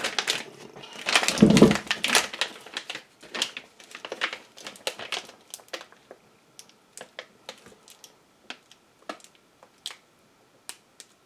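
Handling noise of a strong neodymium block magnet and a measuring tool. A heavy rubbing knock comes about a second in, then a run of small sharp clicks that slow and spread out toward the end.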